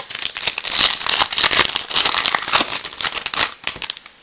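Wrapper of a baseball card pack crinkling and tearing as it is ripped open, a dense run of crackles that stops near the end.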